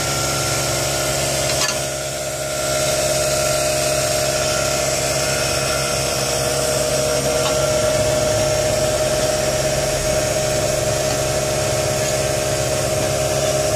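Steady hum and whine of a running motor, with a single click and a brief dip in level about two seconds in.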